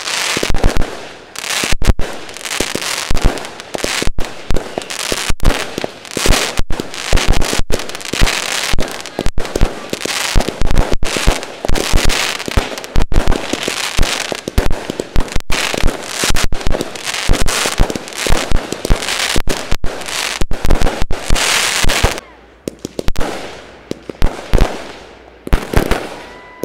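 Aerial fireworks display: a rapid, nearly continuous string of loud shell bursts and crackling, with a short lull about two-thirds of the way through before the bangs start again.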